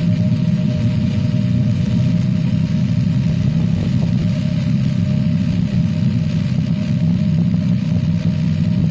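Electric hammer drill boring into solid rock, running steadily under load without a break.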